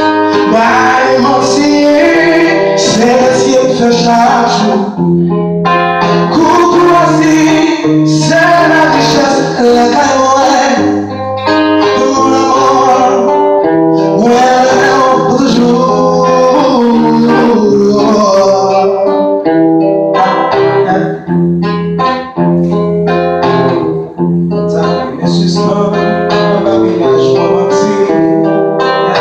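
A man singing a song into a microphone to acoustic guitar accompaniment, the guitar plucked and strummed throughout.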